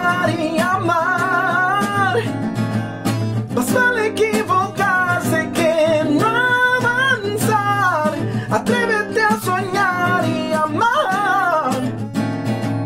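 A man singing long held notes that slide and waver in pitch, over a strummed acoustic guitar.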